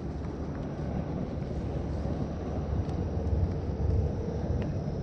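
Steady low rumble of a car on the move, with road and wind noise.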